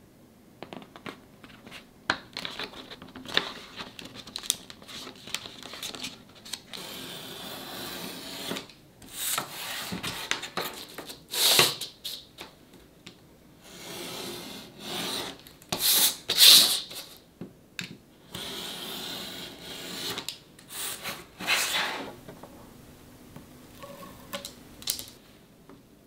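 Hands rubbing and smoothing paper onto thin wooden frame strips and trimming it with a craft knife: a run of scraping, rubbing strokes, some brief and sharp, dying down near the end.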